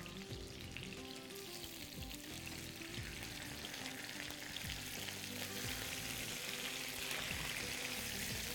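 Whole marinated tilapia frying in oil in a pan, sizzling steadily and growing a little louder about halfway through. The fish is nearly cooked.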